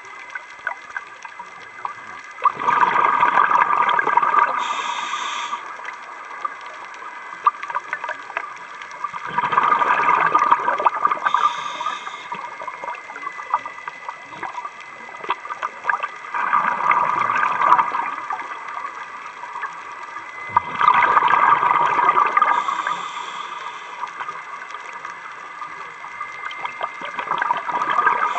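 Scuba diver breathing underwater through a regulator: a rush of exhaled bubbles about every six seconds, five times, with quieter breathing noise in between.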